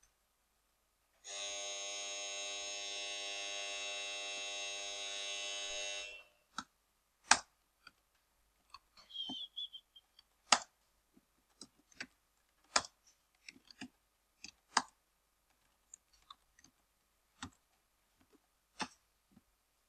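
A steady electric buzz for about five seconds, starting about a second in and then cutting off. It is followed by scattered, irregular keystrokes and clicks of a computer keyboard as CSS lines are typed in a code editor.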